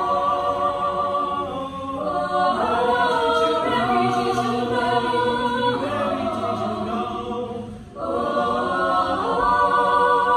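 Mixed-voice high-school choir singing a cappella in harmony, holding long chords that change every couple of seconds. The voices break briefly for a breath about eight seconds in, then come back in together.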